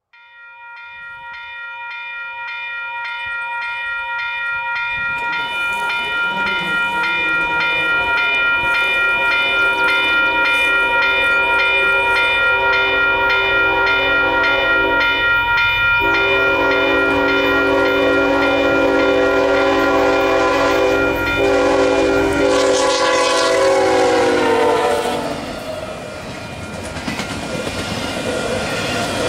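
Union Pacific diesel-hauled intermodal freight train approaching with its multi-chime air horn sounding, growing louder over the first several seconds over the rising rumble of the locomotives. About 24 seconds in, the horn's pitch drops as the locomotives pass and the horn stops, leaving the rumble and clatter of double-stack container cars rolling by.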